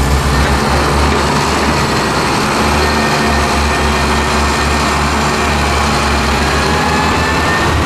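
Heavy diesel engine of a HOWO dump truck running steadily with a low rumble, with a faint whine rising near the end.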